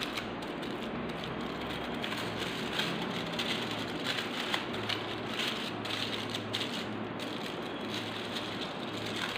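Aluminium foil crinkling and rustling with many small crackles as it is folded and pressed around the dough by hand.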